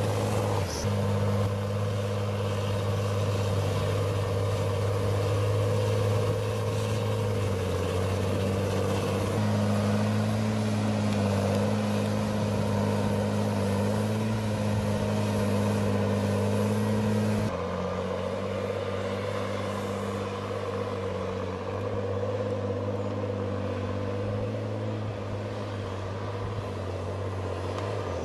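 Tigercat 635D six-wheel skidder's diesel engine running steadily under load as it drags logs, a deep, even engine note. The note shifts abruptly twice, about a third of the way in and a little past halfway.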